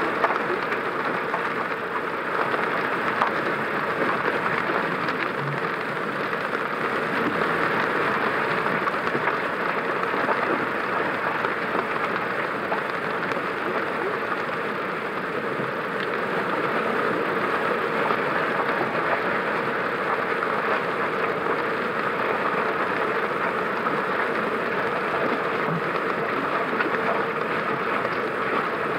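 Car driving in the rain: a steady hiss of rain and tyres on wet road, with a low, even hum underneath.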